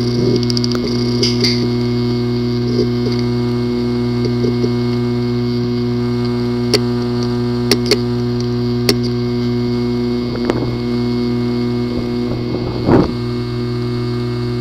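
Failing hard drive with a physically damaged disk assembly: it runs with a steady hum broken by sharp clicks at irregular intervals, and a louder rough burst near the end.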